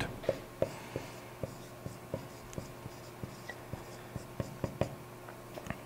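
Dry-erase marker writing on a whiteboard: a quiet string of short, irregularly spaced marker strokes and taps.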